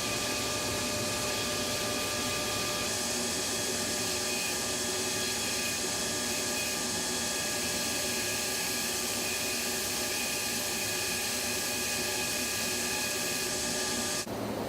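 Factory machinery running steadily: an even mechanical noise with several held tones, cutting off abruptly near the end.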